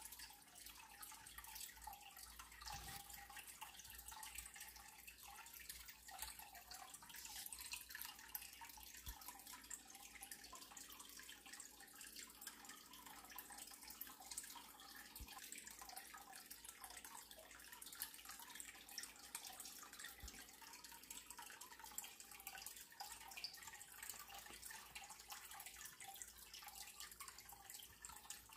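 Near silence: faint room tone with soft scattered ticks and crackles.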